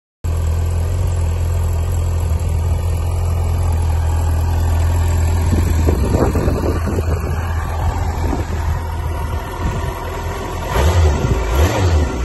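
2004 Yamaha R1's inline-four engine running, a steady low drone that turns rougher and more uneven after about six seconds, with a few louder pulses near the end.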